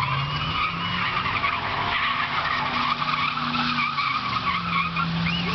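Car doing a burnout: tyres squealing without a break in a wavering high pitch, over the steady note of the engine running hard, its pitch shifting a little.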